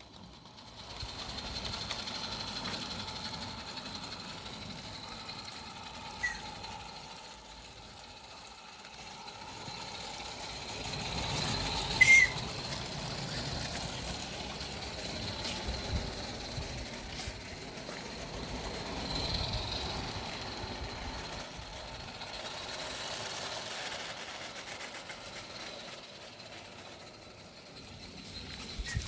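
Accucraft Ruby live-steam garden-scale locomotive running with its train, steam exhaust and hiss mixed with wheel noise, louder through the middle. The engine has fresh piston rings, glands and gaskets and retimed valves. About 12 seconds in there is one short, sharp sound with a brief high tone.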